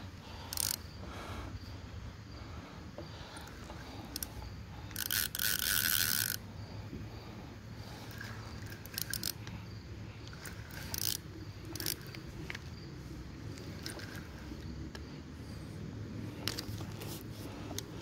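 Fishing reel clicking and ratcheting as a hooked catfish is played and reeled in, with a louder rasping burst lasting over a second about five seconds in.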